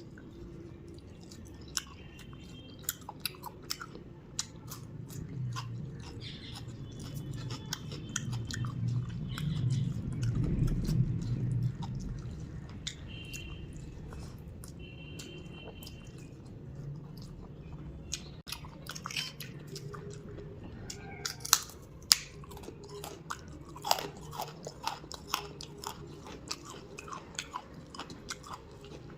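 Close-up chewing and mouth sounds of someone eating rice and curry, with many short wet clicks and a few crunchy bites.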